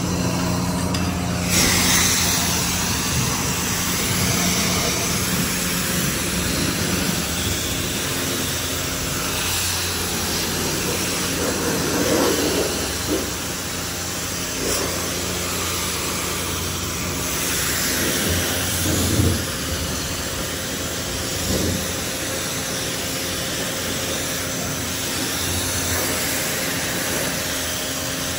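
Self-serve car wash pressure-washer wand spraying a fiberglass boat: a steady hiss of high-pressure water with a low machine hum beneath, swelling briefly a few times.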